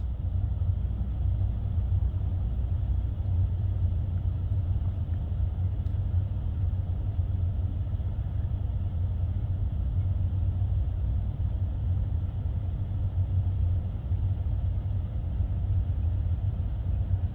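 Idling truck engine, a steady low rumble with no change.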